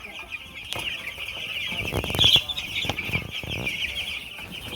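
A flock of broiler chickens clucking and cheeping together in a continuous high chatter, with a louder outburst about halfway through.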